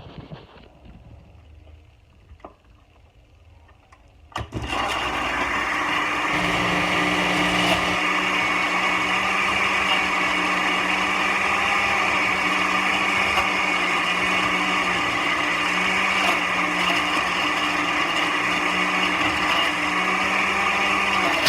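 An electric blender switches on about four and a half seconds in and runs steadily, liquefying chopped pineapple. Before it starts there are a faint knock or two.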